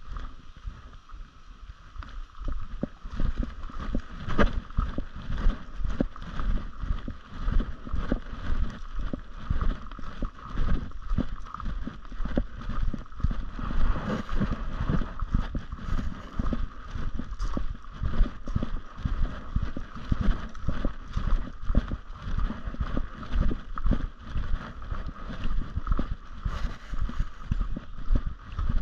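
Footsteps crunching on a gravel road, with wind and handling noise rumbling on the microphone.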